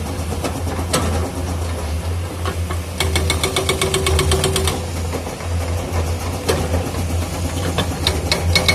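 Excavator-mounted hydraulic breaker hammering rock in rapid, evenly spaced blows. It comes in two bursts: one about three seconds in that lasts nearly two seconds, and another starting near the end. In between, the excavator's diesel engine runs steadily with a low hum.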